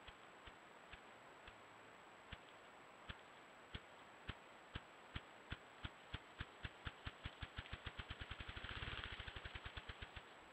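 Male ruffed grouse drumming on a log with its wings: low thumps, slow at first and steadily speeding up into a rapid whir near the end, then stopping.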